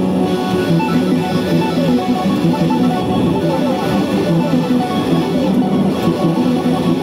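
Electric guitar played through a chain of effects pedals: OBNE Darkstar, Montreal Assembly Count to Five, Boss DD-6 delay and Meris Ottobit Jr. Many short notes overlap into a dense, layered texture that stays steady in loudness.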